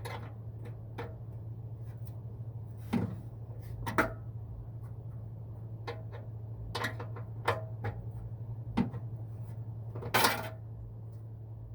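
Wrench working a nut onto a horn-mount bolt, with scattered sharp metallic clinks and knocks. The loudest come about four seconds in and near the end, over a steady low hum.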